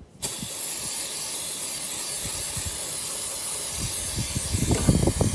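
Aerosol degreaser sprayed in one long continuous hiss, which starts abruptly. Irregular low knocks join it about four seconds in.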